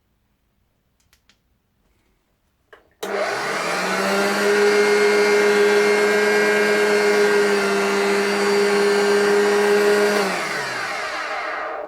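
Hoover Junior 1036 flat-belt upright vacuum cleaner switched on about three seconds in, its motor spinning up to a loud steady whine with a strong hum beneath, then switched off about ten seconds in and winding down with falling pitch. It sounds a little rough, which the owner hopes is only the worn drive belt.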